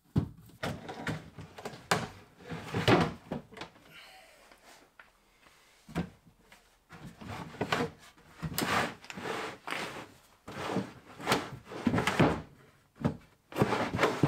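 A large plywood drawer is being pushed and pulled repeatedly on metal full-extension drawer slides, with sliding strokes and knocks as it fails to run in smoothly. It is binding because the right-hand runner is not fully engaged.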